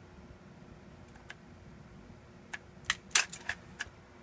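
Scattered sharp clicks and light plastic knocks from a hand-held cassette deck tape transport, one early and a quick cluster in the second half, over a faint steady hum. The clicks come as the transport is run in fast forward and its flywheel drive belt slips off.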